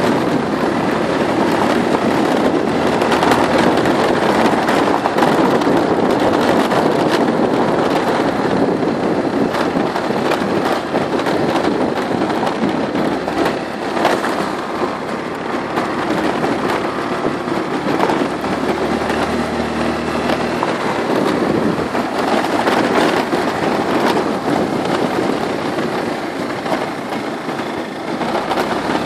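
Motor scooter ridden over a gravel track: its small engine runs steadily under a continuous crackle and rattle from the tyres and bodywork on the rough surface.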